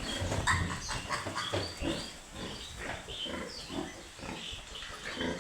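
Piglets making short, irregular grunts and squeaks.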